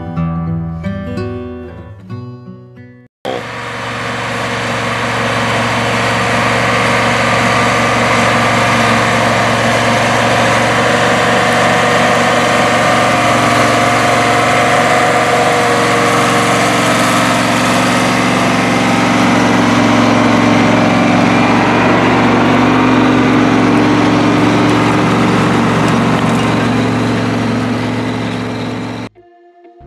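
Acoustic guitar music for about three seconds, then a sudden cut to a Steiger four-wheel-drive tractor's diesel engine running steadily under load as it pulls a shanked ripper through the soil. The engine sound cuts off about a second before the end and guitar music returns.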